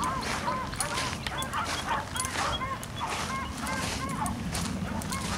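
Pack of beagles baying in the distance, short repeated cries from several dogs overlapping: the hounds are in full cry on a rabbit's track.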